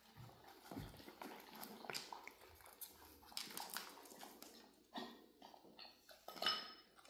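Miniature dachshund puppies' claws and paws clicking and tapping irregularly on a hard vinyl floor as they scamper about, with a short high-pitched squeal about six and a half seconds in.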